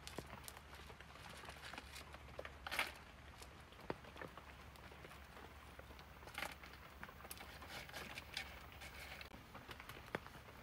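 Faint, scattered clicks and short scraping rustles of small stones being picked up and handled on a dirt floor.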